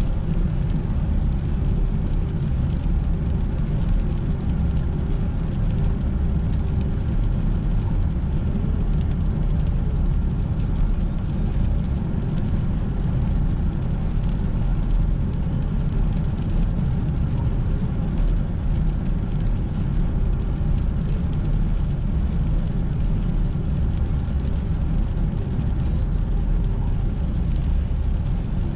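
A car driving on a wet road in the rain: a steady, unbroken rumble of tyres and engine.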